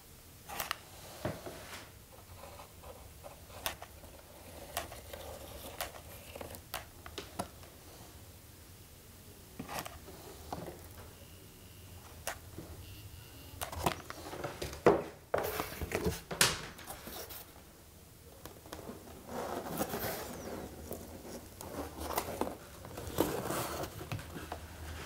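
Corrugated cardboard rustling and crackling as it is handled, glued with a hot glue gun and pressed into place, with scattered sharp clicks. A denser, louder run of rustles about halfway through and again near the end.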